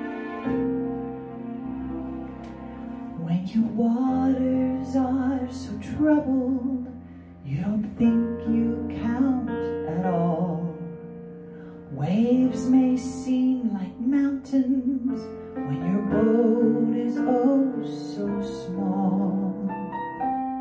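A woman singing a slow song into a microphone, accompanied by an electronic keyboard. The keyboard plays chords alone for the first three seconds, then the voice comes in with a wavering, vibrato-rich line in phrases separated by short pauses.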